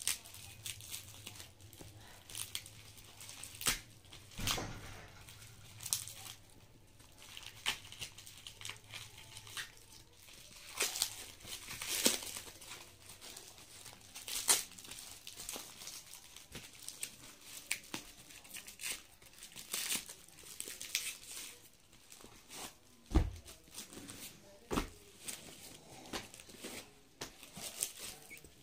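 Clear plastic wrapping around a bundle of comic books being cut with scissors, torn and peeled off, crinkling and crackling irregularly. There are a couple of dull thumps a little before the end.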